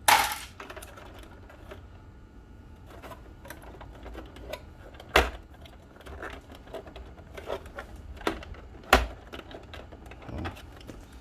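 Clicks, taps and knocks of plastic parts and tools being handled while a water ionizer machine is taken apart, with three sharp, louder knocks: at the start, about five seconds in and about nine seconds in.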